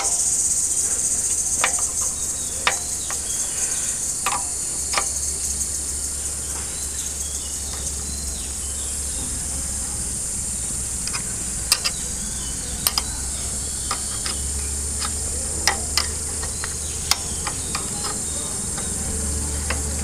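Scattered light metallic clicks and taps as the Royal Enfield's cam gears are turned and rocked by hand and a spanner is set on a gear nut, checking the gear mesh while the cam gear backlash is adjusted. A steady high-pitched buzz runs underneath.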